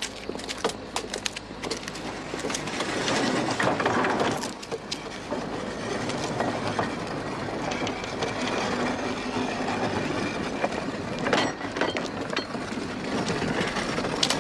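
Loaded mine cart rolling on narrow-gauge rails, its wheels rumbling and clattering; it grows louder over the first few seconds, then runs on steadily.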